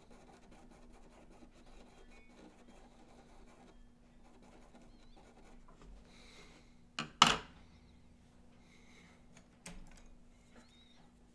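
Faint scratching of a pencil on paper, then two sharp clacks about seven seconds in, the loudest sound, as the pencil is put down on the wooden desk, and a lighter click a couple of seconds later.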